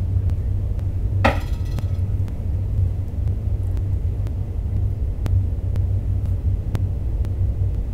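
Steady low hum, with a single sharp knock about a second in as a tuning fork is struck to set it vibrating for a bone-conduction hearing test, and a few faint clicks later.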